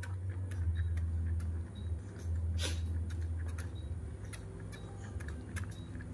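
Baby monkey sucking milk from a feeding bottle: irregular small clicks and smacks at the teat, one sharper click a little over halfway through, over a low steady hum.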